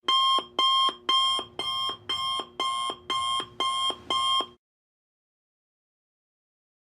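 Alarm clock going off, ringing in quick even pulses, about two a second, each a bright tone that steps down to a lower note at its end. It stops after about four and a half seconds.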